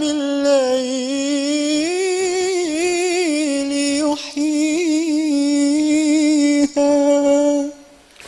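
A single unaccompanied voice chanting an Arabic devotional poem, drawing one syllable out into a long melismatic phrase of held, wavering notes. It stops shortly before the end.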